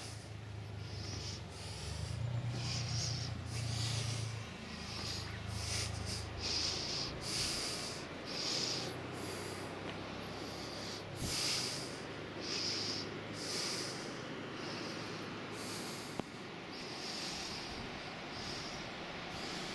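A person breathing hard close to the microphone, about one breath a second. A low steady hum runs underneath for the first half.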